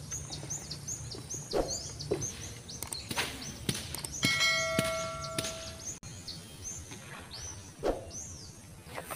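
Birds chirping over and over in short high calls. About four seconds in, a steady ringing tone with overtones sounds for about a second.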